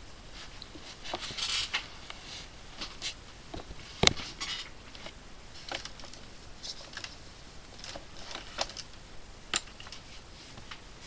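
Faint, scattered clicks and rustles of handling, picked up by a headset microphone lying on the table. The sharpest click comes about four seconds in.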